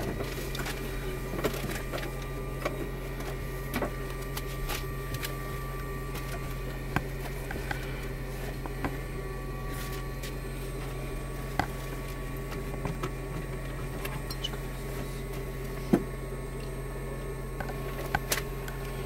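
Steady electrical hum with a few thin whining tones above it, inside a parked Antonov An-24 whose propellers are stopped, broken by scattered light clicks.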